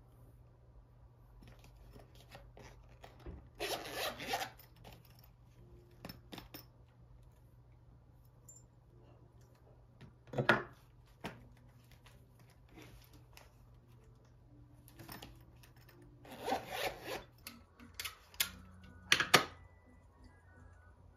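A zipper pulled along a small zippered case, followed by scattered rubbing and handling noises and a few sharp clicks. The loudest click comes about ten seconds in, and another comes near the end.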